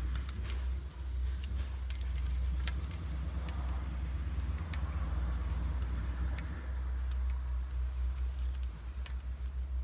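A steady low rumble with scattered light clicks and small rattles as plastic irrigation solenoid valves and their wires are handled and shifted into place.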